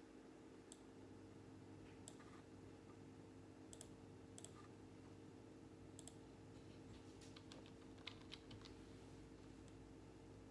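Near silence: room tone with a faint steady hum and a few faint, scattered clicks, clustered near the end.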